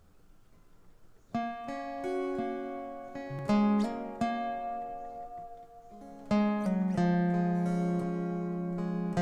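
Dulciborn mountain dulcimer played solo, starting about a second in: a plucked melody over a steady drone.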